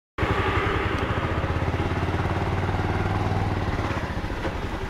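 A small vehicle engine running steadily with a fast, even pulse.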